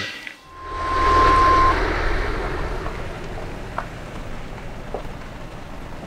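Wind rushing over the microphone outdoors, swelling to its loudest about a second in and then easing to a steady hiss, over the low steady running of a farm machine's engine. A brief steady tone sounds for about a second near the start.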